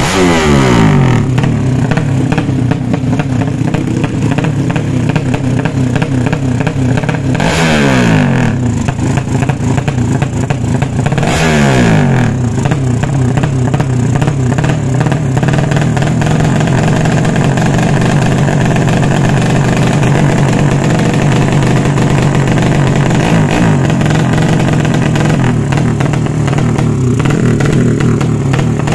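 Tuned 200 cc underbone (bebek) drag-bike engine running stationary through an open aftermarket exhaust, idling steadily between sharp throttle blips. It revs up and drops back at the start, twice more a few seconds apart before halfway, and again at the very end.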